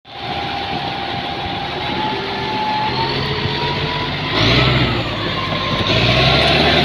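Komatsu D85 bulldozer's diesel engine running, revving up about four and a half seconds in and louder again near the end.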